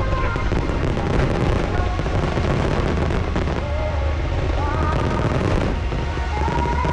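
Large festival fireworks display going off continuously: a dense run of shell bursts and crackle over a low rumble, with music playing over the event loudspeakers.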